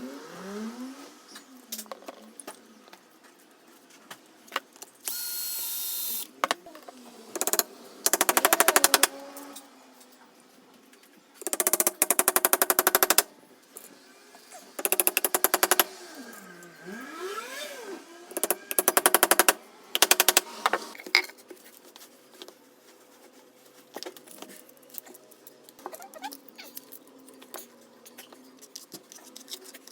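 A power tool with a rapid hammering action running in four or five short bursts of one to two seconds each, with lighter clicks and handling knocks between them.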